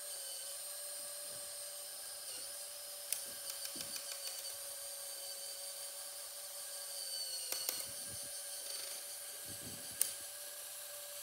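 Small Lego Power Functions electric motor running steadily with a whine, turning the model's plastic gearing. A few sharp plastic clicks come about three seconds in, near eight seconds and about ten seconds in.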